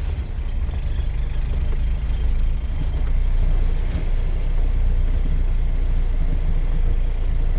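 Ford Model TT truck's four-cylinder engine running as the truck drives along, heard from inside its open cab: a steady low rumble that gets a little louder about three seconds in.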